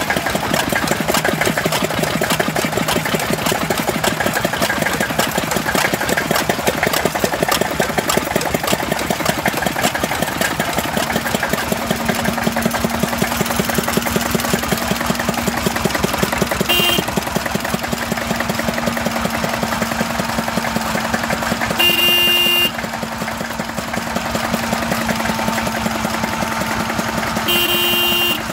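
Old stationary engines running steadily with fast, even firing beats. A horn toots briefly about halfway through, then sounds twice more near the end, each of those blasts a little longer.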